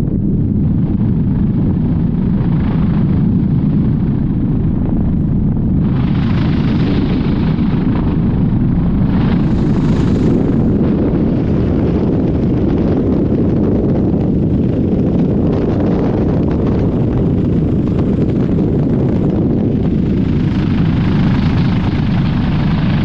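Helicopter in flight heard from inside the cabin: a loud, steady low rumble of rotor and engine with wind buffeting the microphone. A brighter rushing hiss swells a few times.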